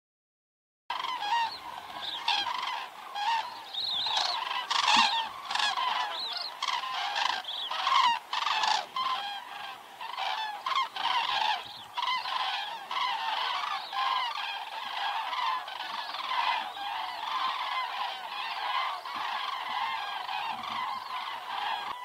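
A large flock of common cranes calling in flight, many overlapping calls at once. The calls are loudest and most distinct in the first half and blend into a steadier, softer chorus later, after a brief silent gap at the very start.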